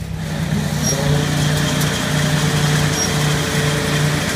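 Wolverine hops harvester running as its hydraulic valve levers are worked: a machine hum that rises and grows louder about a second in, then settles into a steady run with a low drone pulsing about twice a second.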